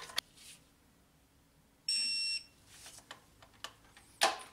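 Digital torque wrench beeping once, a steady high electronic tone about half a second long, the signal that the set torque of 13 ft-lb on the new coolant temperature sensor has been reached. There are a few light tool clicks, and a sharper knock near the end.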